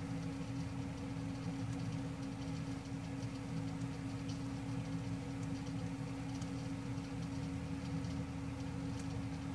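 Steady low hum with one strong constant tone, over which faint scattered ticks come and go.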